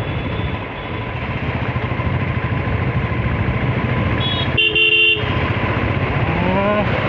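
Motorcycle engine and road noise running steadily while riding in traffic; a vehicle horn honks once, about half a second long, around four and a half seconds in, and a rising tone follows near the end.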